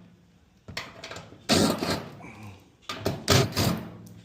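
Knocks and rattles of metal against metal as screws are worked out of a clothes dryer's sheet-metal cabinet: four or five short clattering knocks, the loudest a little past halfway.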